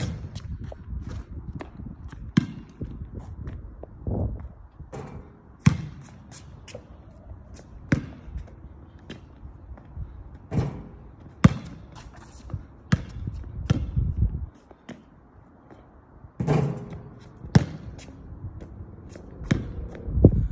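A basketball bouncing on a hard outdoor court and striking the hoop during shooting practice: a string of sharp, irregular thuds and bangs, some much louder than others, over a steady low rumble.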